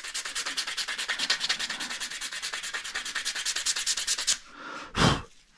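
Hand sanding of a wooden knife handle: sandpaper rubbed back and forth in quick, even strokes, several a second, which stop about four seconds in. One short, louder scrape follows near the end.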